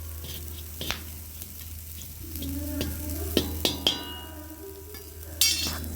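Borax melting in a hot pan: it sizzles and crackles with scattered sharp pops, a short metallic ring about four seconds in, and a brief loud hiss near the end. This is the melting stage of making borax ash, before the melt puffs up.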